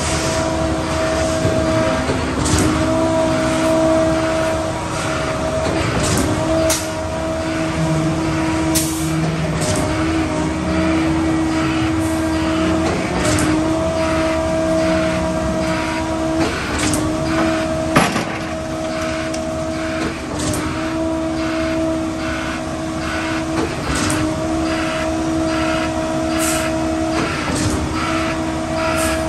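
Concrete mixer trucks running: the diesel engines and drum drives give a steady whine that fades in and out, with scattered clanks and knocks.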